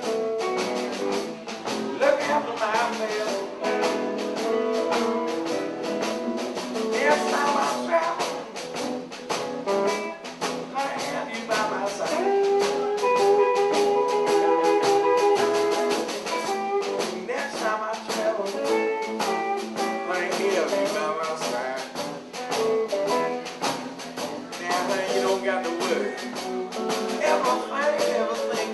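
Blues band playing live, led by guitar with notes and runs over the band and some singing now and then. The sound is thin, with little bass.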